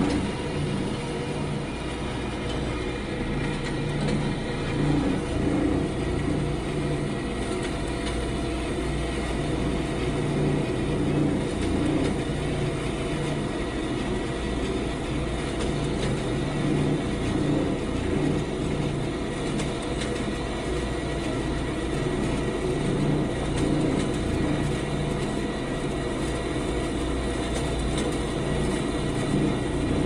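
Metal-cutting band saw running through metal stock: a steady mechanical drone with a low hum that swells and fades every second or two.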